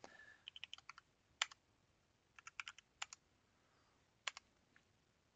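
Quiet computer keyboard typing: keystroke clicks come in a few short runs with single keystrokes between them.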